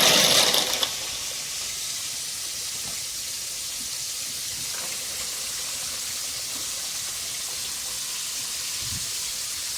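Dry jumbo elbow pasta poured into a pot of water, a brief loud rush in the first second. Then a steady sizzling hiss from chicken tenders frying in oil.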